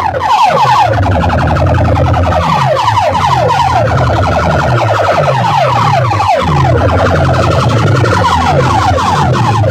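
Competition DJ sound system playing very loudly: rapid, repeated falling siren-like sweeps over deep bass pulses that also fall in pitch.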